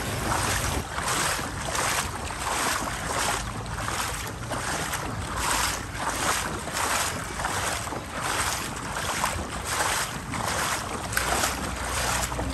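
Footsteps wading through shallow floodwater on a street, each stride a splashing swish, about two a second.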